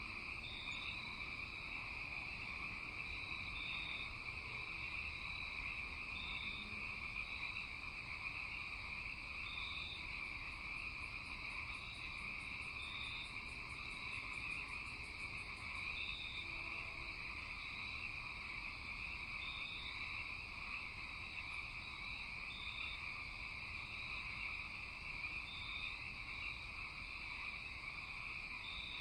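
Night chorus of frogs and insects: a steady, dense trilling, with a short high chirp repeating about once a second. A faint, fast rattle of high ticks joins for a few seconds around the middle.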